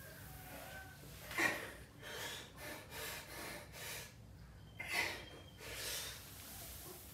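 A weightlifter's hard breathing through heavy barbell back squats: two sharp, forceful exhales about a second and a half in and about five seconds in, with quicker, softer breaths between them and near the end.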